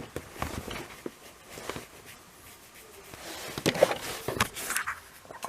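Plastic Plarail toy crossing parts being handled: scattered light clicks and clacks, busiest from about three and a half to five seconds in.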